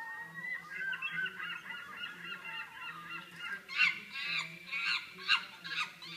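Played-back animal sound-effect recording of a flock of birds calling over one another in many short, overlapping calls. The calls grow louder and sharper a little past the middle.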